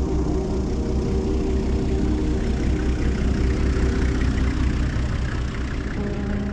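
Open safari game-viewing vehicle's engine running at low revs as it drives slowly up a grass track and passes close by, loudest about four seconds in, then easing off.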